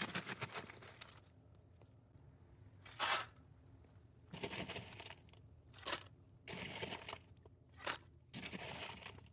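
Lump charcoal crunching and scraping as it is handled, in about seven short uneven bursts with quiet gaps between.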